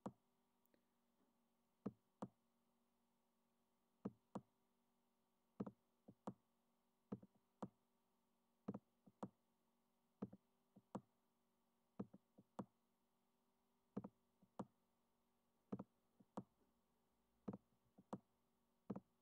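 Faint, sharp computer clicks, mostly in pairs, a pair every second and a half or two, as pages are clicked through on screen. A very faint steady hum lies underneath.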